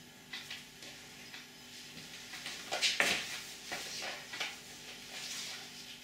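A person getting up from a kneeling position on a tiled floor: a series of short rustles, scuffs and knocks from tracksuit fabric and slide sandals on the tiles, loudest about three seconds in.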